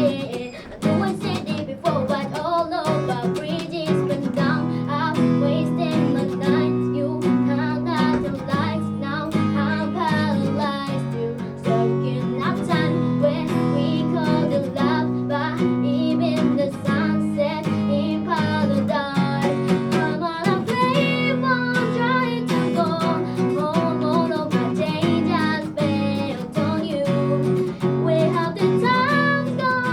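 Acoustic guitar strummed in steady chords under a sung melody in a live unamplified performance.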